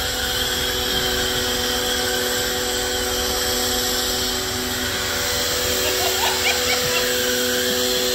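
Electric pressure washer (1900 W DYLECT Ultra Flow Plus) running steadily, its motor and pump giving an even, high-pitched hum over a constant hiss.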